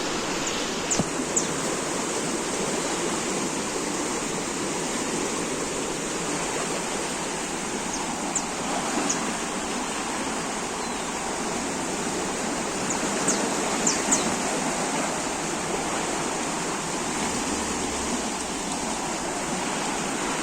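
Water rushing steadily, a constant loud flow like a swollen stream or waterfall. Short high chirps break through it a few times.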